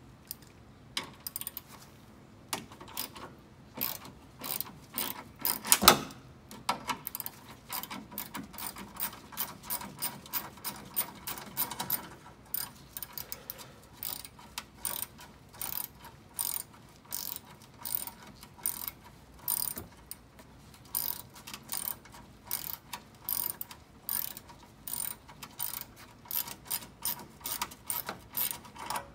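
Ratchet wrench clicking in repeated runs of quick strokes, backing out a small 5/16 bolt that holds the power steering cooler. There is one louder knock about six seconds in.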